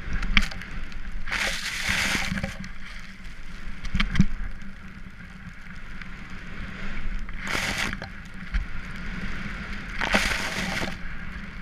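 Skis cutting through deep powder snow, a steady rushing hiss with wind on the microphone, swelling in three surges as powder sprays up over the camera.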